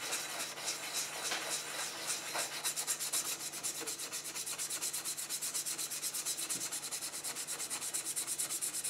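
Toothbrush scrubbing paint-stripping acid into the old paint on an antique metal wind-up toy car body, in fast, even back-and-forth strokes, to lift off layers of paint.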